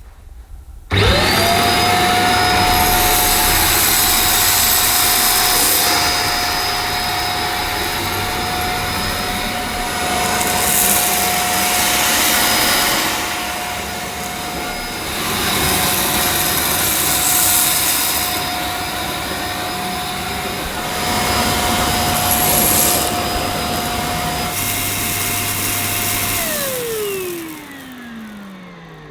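EGL 600-watt handheld mains vacuum cleaner switched on about a second in, running with a steady whine while it sucks black sand, rice and lentils off a rug, its hiss swelling and dipping as it is worked back and forth. Near the end it is switched off and the whine falls away as the motor spins down.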